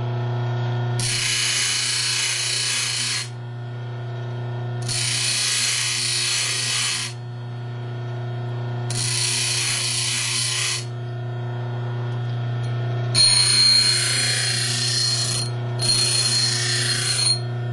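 A 6-inch bench grinder's motor running steadily while steel hacksaw blade is pressed against the wheel in five separate grinding passes, each about two seconds of harsh hiss, with only the motor hum between them.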